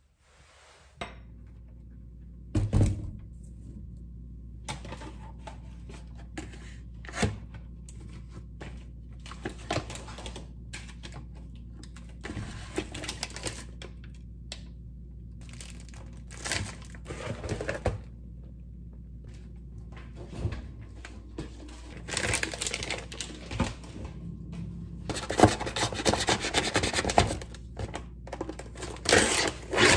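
Groceries being unpacked on a kitchen counter: packages clicking and knocking as they are set down and plastic packaging rustling, over a steady low hum. Near the end, louder crinkling and tearing as the plastic film is cut off a meat tray with a knife.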